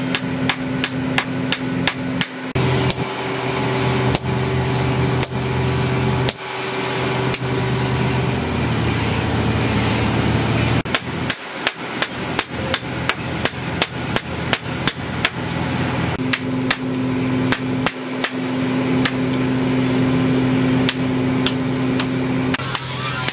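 Hand hammer and sledgehammer striking a red-hot steel bar on an anvil in turn, forging it into a knife blade: a fast, steady run of metallic blows, about three a second.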